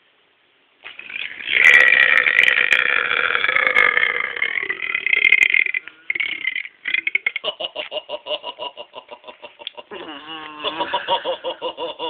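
One long, loud, deliberate burp lasting about five seconds, starting about a second in, followed by a stretch of laughter.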